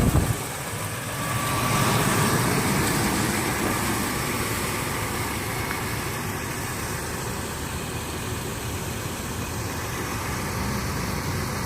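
Car engine idling with steady running noise. The sound cuts off suddenly at the end.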